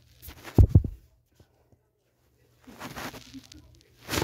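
Two heavy, low thumps about half a second in, a stretch of soft rustling a couple of seconds later, and a short sharp knock near the end: handling noise from the filming phone and fabric being shifted.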